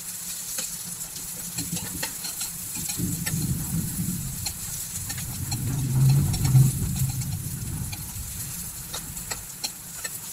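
Ginger, garlic, onion and lemongrass sautéing in oil in a steel wok: a steady sizzle with many short clicks and scrapes of a metal spatula stirring against the pan. A low rumble swells in the middle and fades again.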